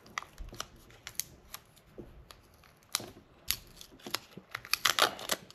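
Protective wrapping on a laptop power brick being picked at and peeled by hand: scattered crinkles and sharp clicks, coming thicker near the end as the wrap starts to tear.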